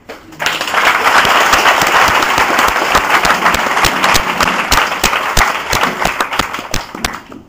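Audience applauding, a dense mass of many hands clapping that starts about half a second in and dies away near the end.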